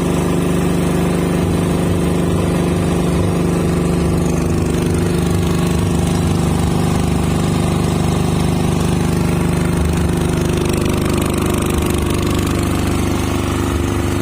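Generator set engine running steadily with a low, uneven throb; its pitch shifts slightly about ten seconds in.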